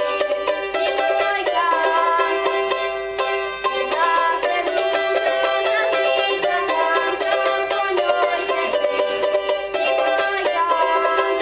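A samica, the small Slavonian folk tambura, played solo with fast tremolo picking. A steady drone note sounds under the lively melody.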